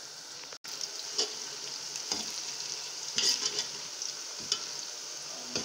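Fried onions and whole spices sizzling in hot oil in a large aluminium pot, with a steel ladle stirring and scraping through them about once a second.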